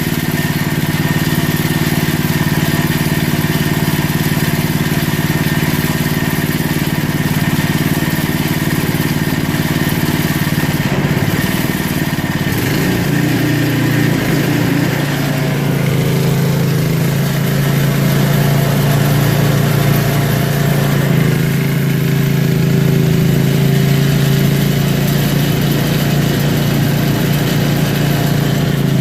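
Snowblower engine running steadily as the machine is put to work; its note shifts about halfway through and then holds steady.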